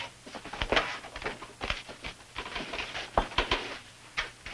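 Footsteps and light knocks as a person crosses a room and opens a wooden door: a string of irregular sharp taps and clicks.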